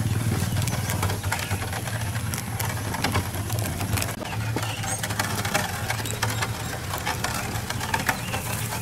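Small engine running steadily at low revs as the vehicle rolls along a bumpy dirt road, with frequent rattles and knocks.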